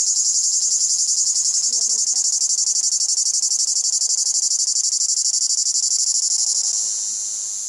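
A cicada singing: a loud, high, rapidly pulsing buzz. Near the end the pulsing smooths into a continuous buzz that starts to fade.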